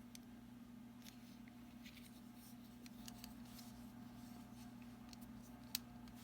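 Faint clicks and metal handling of a Gerber MP600 multitool as its one-handed sliding plier mechanism and lock are worked, with one sharper click near the end, over a steady low hum.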